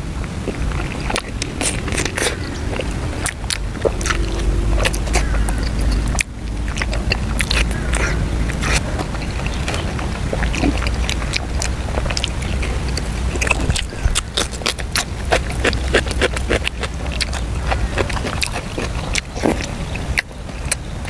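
Close-up chewing and lip-smacking of soft stewed pork leg eaten by hand, with many irregular wet mouth clicks and smacks.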